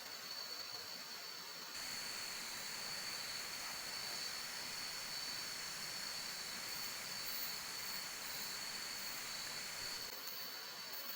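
Steady hiss of heavy rain, louder from about two seconds in until near the end, with a steady high whine underneath.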